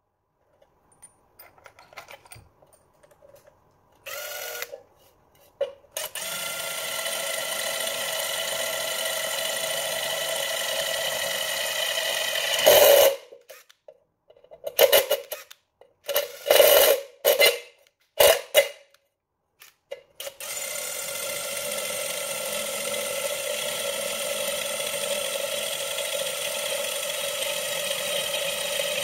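Makita TD111D 12V cordless impact driver drilling into a galvanized steel block with a hex-shank drill bit: a few light clicks as the bit is fitted, then the tool runs steadily for about seven seconds, gives several short bursts, and runs steadily again for the last nine seconds or so.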